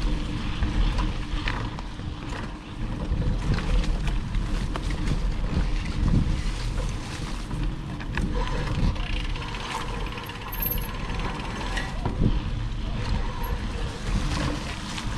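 Mountain bike riding along a dirt trail: continuous mechanical rattling and irregular clicking from the bike, over a steady low rumble.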